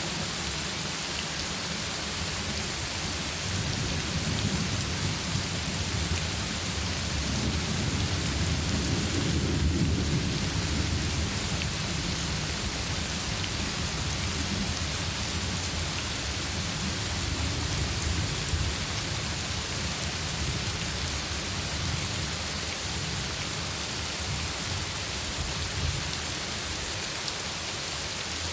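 Heavy rain falling steadily, with rolling thunder rumbling underneath that swells to its loudest about nine to ten seconds in and again briefly near eighteen seconds.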